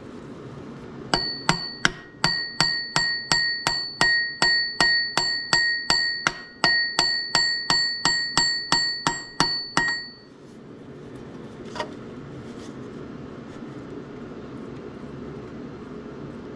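Hammer blows on steel, about three a second for roughly nine seconds, each with a bright metallic ring, then stopping: knocking the seized old bearing off the A/C compressor's clutch pulley.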